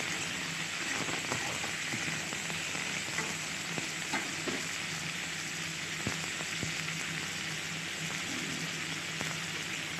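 Potato pieces and drumsticks sizzling steadily as they fry in oil in a metal wok, with a few light clicks of them being stirred.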